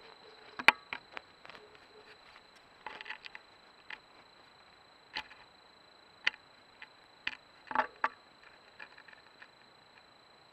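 Scattered sharp snaps and crackles at irregular intervals, the loudest about a second in and a close pair near the end, over a steady thin high whine of the kind a trail camera's electronics put on its recordings.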